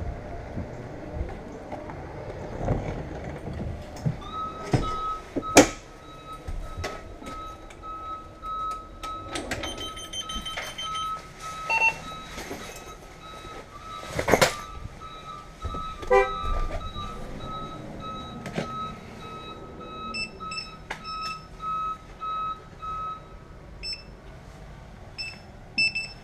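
A steady string of electronic warning beeps at one pitch sounds inside a school bus from about four seconds in until near the end, over sharp knocks and clunks of someone boarding and moving about; the loudest clunk is about five seconds in, another about fourteen seconds in. Shorter, higher beeps come near the end.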